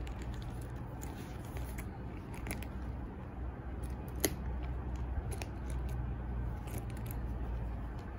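Handling noise from a leather sling bag being touched and turned over: scattered light clicks and rubbing, with one sharper click about four seconds in, over a steady low hum.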